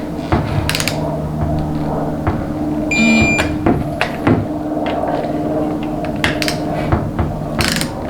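Hand tools clicking and clattering on metal as bolts are run into a transmission valve body, with sharp clicks scattered throughout over a steady background hum.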